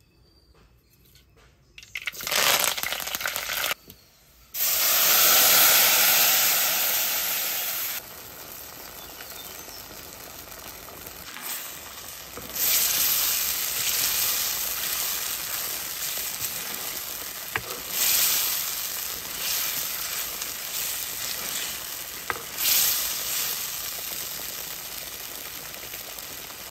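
Mustard and fenugreek seeds going into hot coconut oil in a clay pot and sizzling, with a louder burst of sizzling a few seconds in. The frying goes on as a steady hiss that swells again several times, with a few sharp pops.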